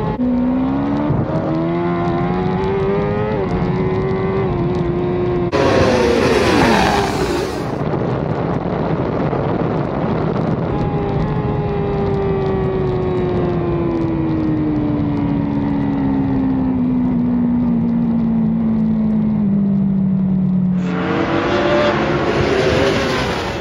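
Racing motorcycle engine heard from onboard at speed: the revs climb over the first few seconds, then the pitch falls slowly for about ten seconds. About six seconds in and again near the end, a louder, fuller sound of race bikes passing a trackside microphone breaks in.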